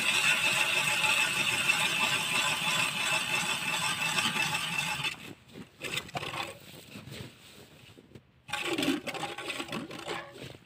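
Hand ice auger boring into lake ice: a steady grinding scrape of the blades in the ice, with a faint high whine, that stops about five seconds in. Then come scattered scrapes and knocks, and one more short burst of scraping near the end.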